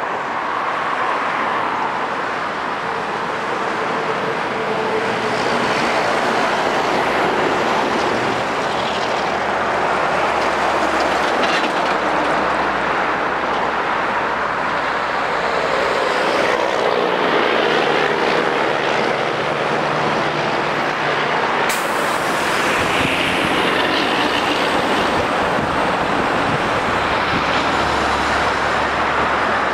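Continuous traffic noise from a busy multi-lane highway: cars and box trucks passing at speed, with tyre noise and the low note of truck engines coming and going. A single sharp click about two-thirds of the way through.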